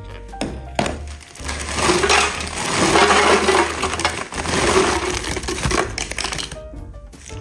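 Dry food poured into a plastic storage container: a continuous rattling rush of small hard pieces, starting about a second in and tailing off near the end, over background music.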